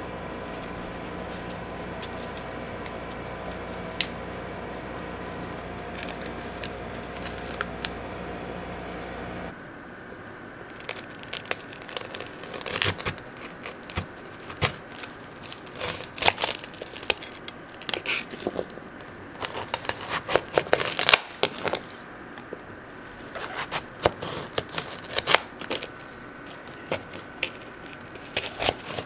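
For the first third, gloved hands crinkle a thin plastic cup while pressing candied apple pieces into it, over a steady hum. After that, a kitchen knife cuts through the hard candy shell of a whole matcha-dusted candied apple in repeated bursts of sharp crackling and crunching as it slices.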